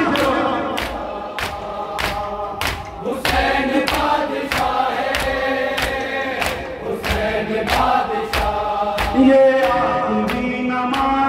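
Men chanting a noha, a Shia mourning lament, in unison. It is punctuated by regular sharp slaps of matam, hands striking chests about twice a second.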